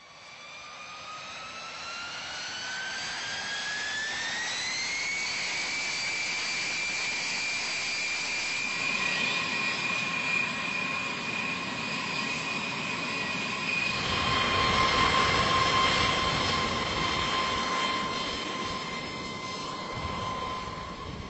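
Jet turbine engine spooling up: a whine that climbs steadily in pitch for about five seconds and then holds a steady high pitch over a rushing roar. About two-thirds of the way through the rush grows louder and a lower steady whine takes over.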